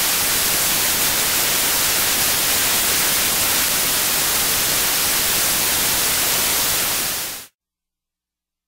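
Loud TV-static white-noise sound effect that cuts off suddenly about seven and a half seconds in, leaving dead silence.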